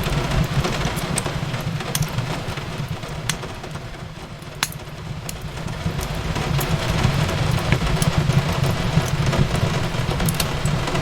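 Fireplace crackling, with scattered sharp pops over a low steady rumble, mixed with an even hiss of rain falling on a window. The whole bed dips a little about four seconds in, then comes back up.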